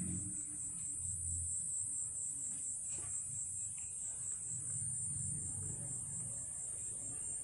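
Steady, high-pitched insect chorus with a slight pulse.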